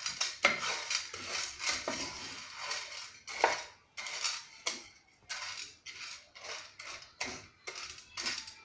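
Sunflower seeds stirred in a dry pan, the stirring utensil scraping across the pan and the seeds rattling in short, irregular strokes, about two a second.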